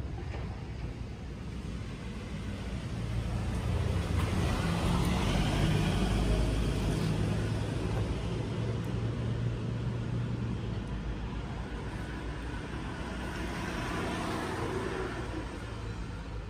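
Road traffic noise of passing motor vehicles, a steady rumble that swells to its loudest in the middle and rises again near the end.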